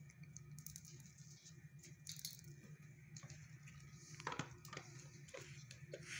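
Quiet small-room tone: a steady low hum with a few faint clicks and taps, mostly in the second half.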